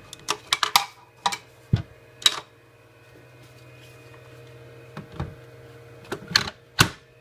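Clicks, knocks and rattles of a jobsite radio being handled, a cluster in the first two and a half seconds and a few more near the end, over the steady hum of battery chargers' cooling fans.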